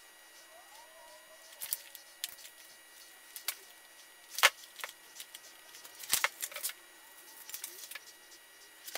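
Plastic wrap crinkling and crackling in scattered short bursts as it is handled over a foam seat during pattern-making, the loudest crackle about halfway.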